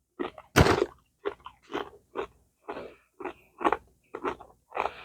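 Lay's potato chips bitten and chewed: one loud crunching bite about half a second in, then a steady run of crunching chews, about two a second.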